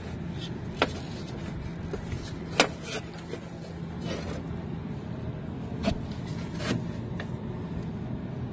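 Wire terminals being handled and pulled off in an air-conditioner's wiring, giving several sharp clicks and light knocks. Under them runs a steady low hum.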